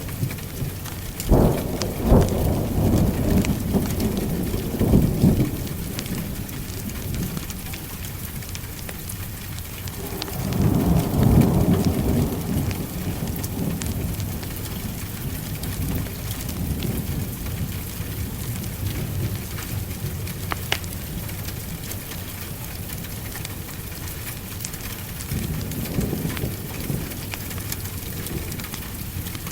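Steady heavy rain with thunder rumbling in three long swells, the loudest about ten seconds in, and scattered sharp crackles of a wood fire.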